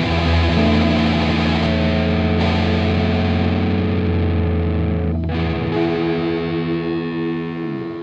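Punk rock song ending on sustained, heavily distorted electric guitar chords, with a brief break about five seconds in and the pitch sliding down near the end.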